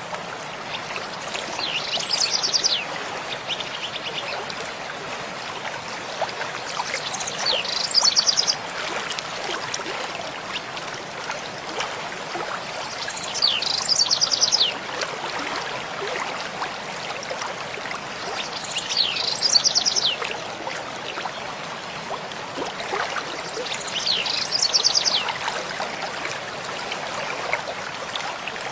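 A small stream running steadily over stones, with a songbird singing a short phrase of quick descending notes ending in a rapid trill, repeated five times about every five to six seconds.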